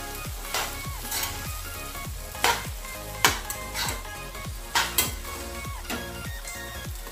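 Metal spoons scraping and clinking against a non-stick kadai as boiled noodles are tossed through stir-fried vegetables and sauces, over a low sizzle of frying. Several sharp clinks stand out. Background music with a steady beat plays throughout.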